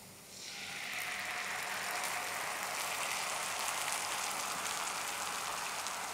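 Tomato puree sizzling as it is poured into hot oil with sautéing onions and garlic in a frying pan. The sizzle starts just after the pour begins, grows over about a second, then holds as a steady crackling hiss.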